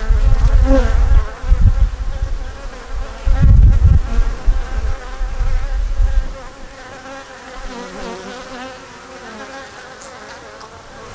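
Honey bees humming over an opened hive full of exposed frames: a steady, wavering drone from many bees. A heavy low rumble on the microphone during the first six seconds, after which the hum continues on its own.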